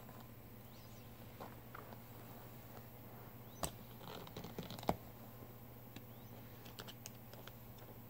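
Faint scattered clicks and taps of a seat-strap buckle being handled, with two sharper clicks about three and a half and five seconds in.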